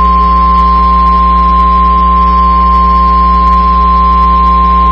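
NOAA Weather Radio warning alarm tone: a single loud, steady tone of about 1050 Hz, held unbroken, over a low hum from the receiver. It signals that a warning, here a severe thunderstorm warning, is about to be read.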